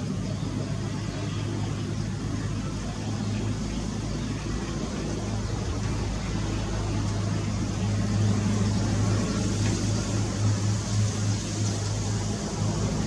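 A steady low engine-like hum over a background of noise, getting a little louder and more uneven about two-thirds of the way in.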